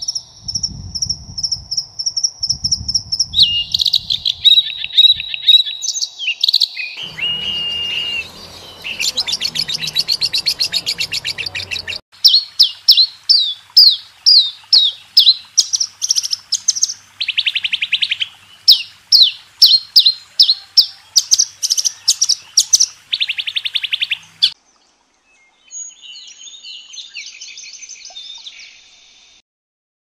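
Birds calling and singing, several different kinds in turn with abrupt changes between them. There are high trills, rapid runs of sharp repeated chirps, and a fainter twittering near the end.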